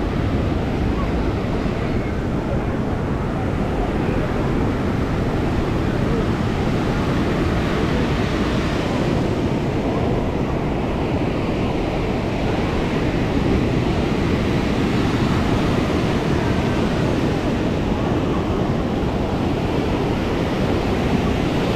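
Ocean surf breaking and washing up a sandy beach, with wind buffeting the microphone. The wash swells about eight seconds in and again around fourteen seconds.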